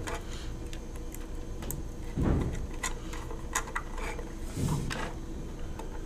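Small scattered clicks and ticks of a screwdriver and wire working a screw terminal on an alarm control panel's circuit board, with two dull thumps about two seconds in and just before five seconds in.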